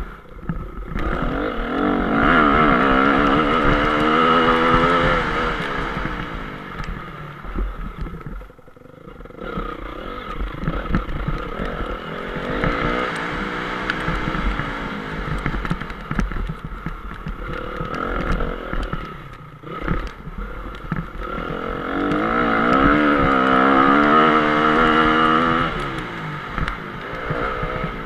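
2014 Honda CRF 250's single-cylinder four-stroke engine heard up close on board while it is ridden around a motocross track, revving up and down in long pulls as the throttle is opened and shut. The revs fall off sharply about eight seconds in and again near twenty seconds, then climb again.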